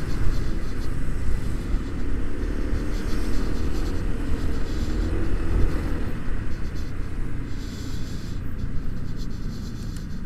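Low rumble of wind and road noise on the rider's microphone while riding a scooter, with the engine running underneath.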